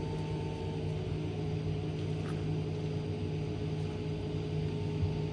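Steady, even hum of a running motor or fan, several fixed tones with no change in level.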